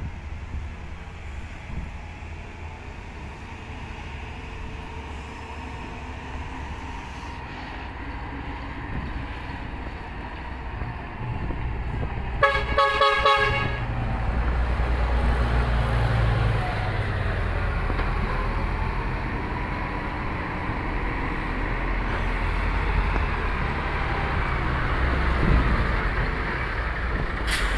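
Diesel engine of a loaded Hino FM1J truck running as it comes closer, its low rumble growing louder, with a horn sounded once for about a second just before halfway.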